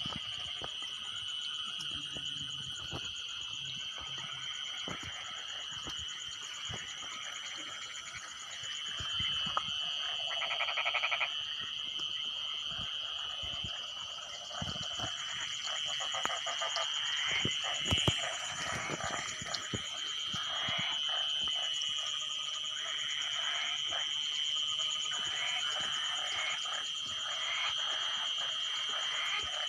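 Night chorus of frogs croaking in repeated pulsed calls over a steady high drone of insects. A single sharp click stands out past the middle.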